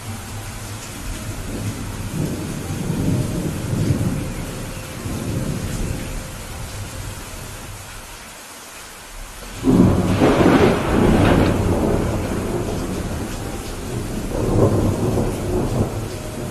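Steady rain with rolling thunder. A low rumble swells and fades in the first few seconds. About ten seconds in comes a sudden, loud thunderclap that rumbles on, and another swell of thunder follows near the end.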